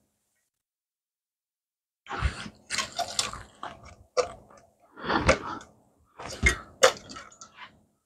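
Irregular clicking, clinking and rustling of small parts and hand tools being handled, in short clusters starting about two seconds in, with dead silence between.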